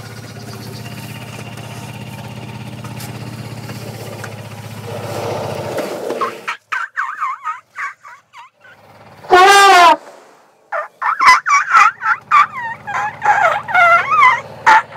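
A steady low hum for about six seconds, then Asian elephants calling: short wavering squeaks and chirps, one loud trumpet about nine seconds in, then a rapid run of squeaks and chirps to the end.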